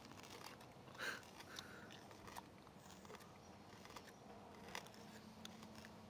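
Near silence with a few faint, scattered clicks: the mouth sounds of people chewing raw jalapeño peppers.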